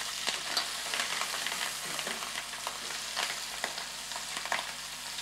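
Pieces of lobster sautéing in hot butter and oil in a sauté pan, sizzling steadily with frequent crackles and pops.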